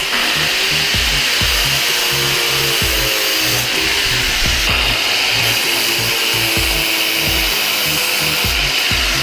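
A power tool cutting, a loud, steady high-pitched grinding hiss with a few shifts in level, most likely cutting off the truck's exhaust pipe. Background music with a steady bass beat plays under it.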